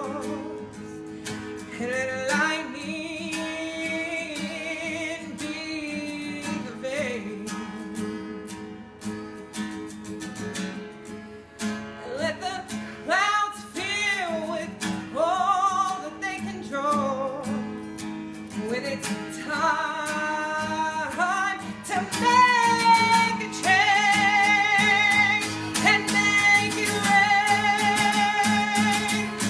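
Strummed acoustic guitar under a singing voice that slides up and down between notes. In the last few seconds the voice holds long notes with vibrato.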